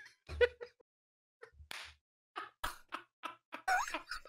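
Quiet, breathy laughter in short separate bursts with pauses between them.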